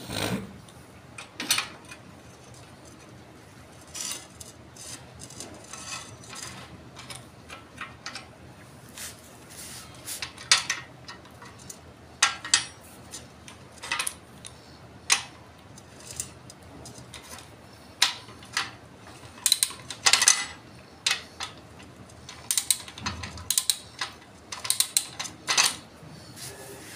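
Ratchet wrench with a socket clicking in short runs, with metal clinks of tools and bolt, as the bolt at the pivot of an iron handle is tightened. The clicks come irregularly, with pauses between.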